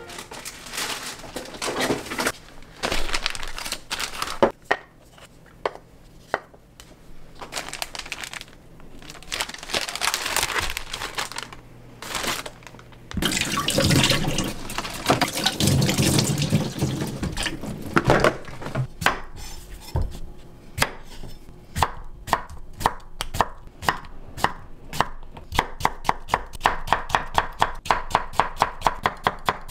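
Tap water running into a steel kitchen sink while a cucumber is rinsed, then a kitchen knife chopping the cucumber on a wooden cutting board. The strikes come faster and faster, about five a second near the end.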